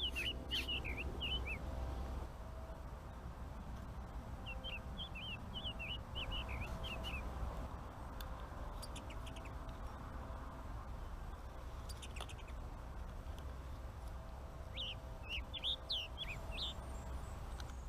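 A small bird chirping in three short bursts of quick, high notes, one at the start, one about five seconds in and one near the end, over a steady low hum.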